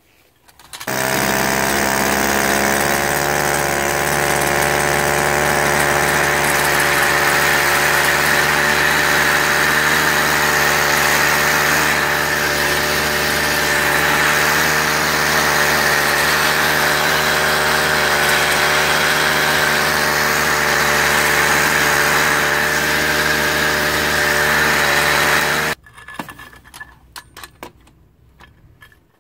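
Sky 2.5 HP two-stroke outboard motor running steadily while its propeller turns, with a loud noise from the drive that the owner blames on a rusty drive shaft and, he guesses, rusty bearings. It stops abruptly near the end, followed by a few light clicks and knocks of handling.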